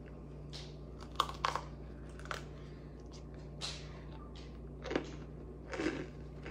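Chewing of a bite of freeze-dried ice cream: a series of short, irregular crunches, several seconds apart at times.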